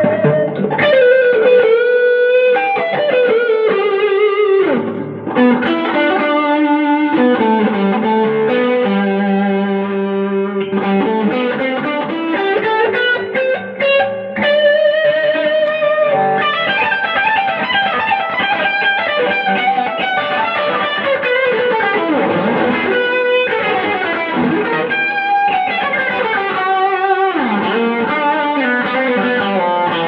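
Newly repaired tobacco-sunburst Les Paul electric guitar with humbucking pickups, played solo: a melodic lead line of held, sustaining notes with slides and bends that glide the pitch up and down.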